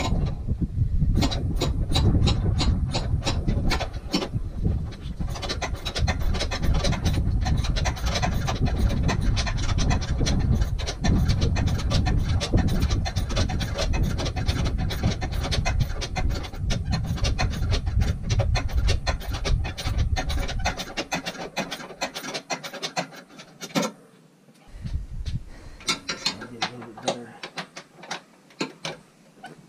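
Hand ratchet clicking in quick runs as bolts on a transmission mount are turned, mixed with rubbing of tools and parts. A low rumble sits underneath and drops away about two-thirds of the way through.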